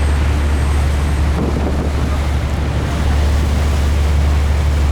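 Steady low drone of a tour boat's engine under the constant rush of water and spray from the falls, with wind buffeting the microphone.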